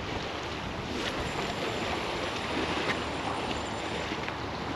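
Steady wind noise on the microphone mixed with the wash of waves against the shore at a very high tide.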